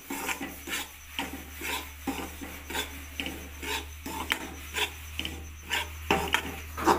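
Metal spatula scraping and stirring wheat flour around a metal kadhai in short rasping strokes, about two a second, as the flour is roasted toward golden brown.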